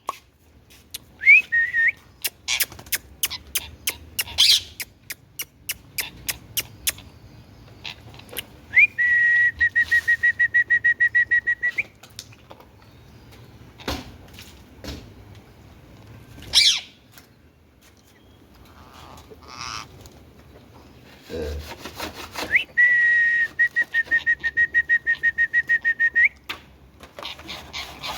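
Indian ringneck parakeet whistling: short rising whistles, brief shrill calls, and two long, even whistles with a rapid flutter of about three seconds each.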